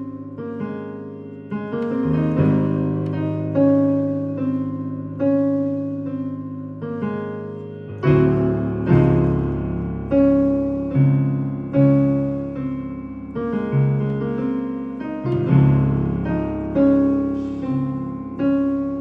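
Keyboard playing a gospel chord progression: chords struck about once a second, each dying away, over sustained bass notes that shift a few times.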